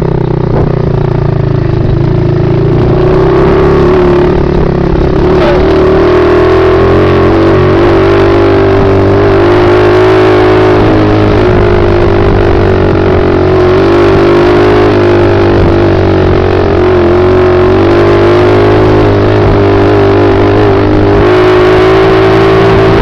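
110cc single-cylinder pit bike engine running steadily at speed, its pitch held nearly constant.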